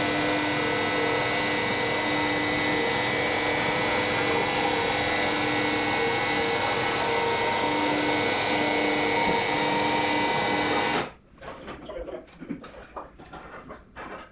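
Matterson electric lifting jacks running together as they raise a steam locomotive's frames: a steady mechanical drone with a hum in it, which cuts off suddenly about eleven seconds in. After that, faint knocks and clatter.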